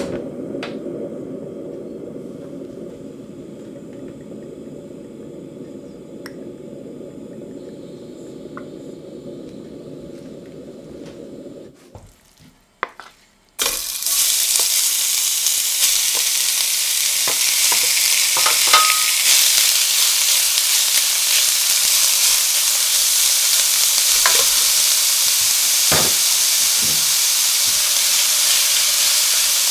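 A portable gas stove clicks alight and its burner flame runs with a low, steady rush. About 14 seconds in, strips of rump steak are tipped into the hot oiled stainless steel sauté pan and sizzle loudly, with taps and scrapes of a wooden spatula as they are stirred.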